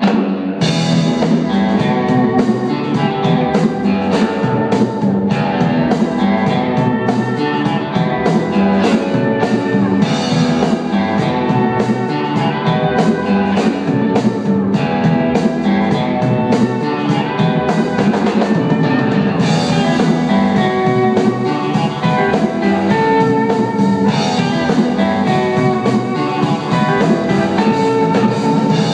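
Live instrumental rock band playing: electric guitar and pedal steel guitar over electric bass and a drum kit. The full band comes in sharply at the start after a quieter held note, then plays on loud and steady with a regular drum beat.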